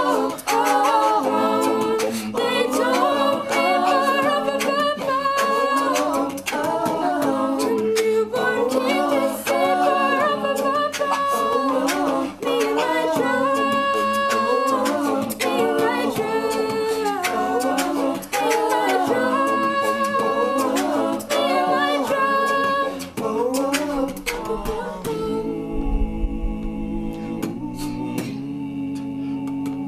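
Unaccompanied vocal group singing wordless harmony with sharp percussive clicks in time. About 25 seconds in it thins to a few low held notes.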